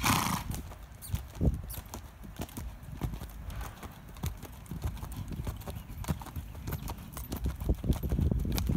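Hoofbeats of a ridden American Saddlebred gelding moving briskly on an arena's sand footing, a run of soft irregular thuds. A short loud rush of noise comes right at the start, and the hoofbeats grow louder near the end.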